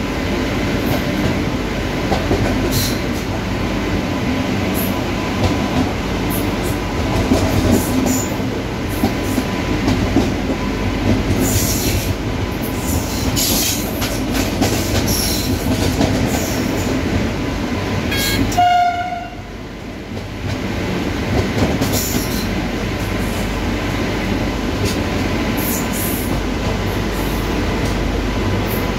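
Running noise inside the cab of an IGBT-based electric locomotive under way: a steady rumble from the locomotive and the rails, with scattered clicks from the wheels over rail joints and a faint steady whine. A container freight train is going by on the adjacent track at first. About two-thirds of the way through comes a brief pitched tone and a short dip in the noise.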